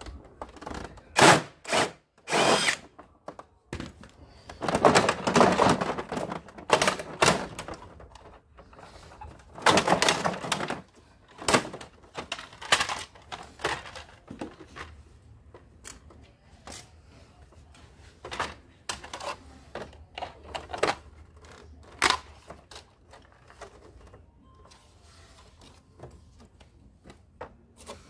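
Cordless Stanley drill-driver running in short bursts as it backs screws out of a dehumidifier's plastic casing, followed by scattered clicks and knocks of plastic panels being pried and lifted off.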